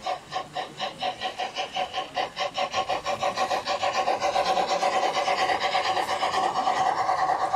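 LGB garden-scale model steam locomotive running past, its chuffing quickening from about four or five beats a second until the beats blend into a steady rasp, with the running noise growing louder toward the end.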